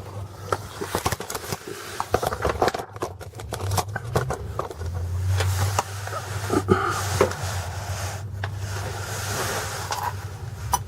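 Scattered metal clicks, knocks and scrapes of hand tools working on a slipped exhaust slip-fit clamp, over a low hum during the second half.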